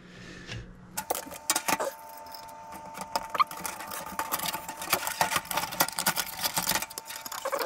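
Rapid metallic clicks and rattles of a computer power supply's metal case being screwed back together with a screwdriver, over a faint steady hum.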